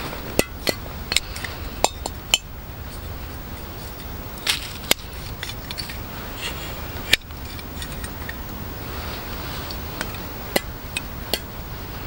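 Irregular sharp metal clicks and clinks from a small remote-canister gas stove being handled: its folding legs and pot supports swung out and its hose fitting brought to the gas canister.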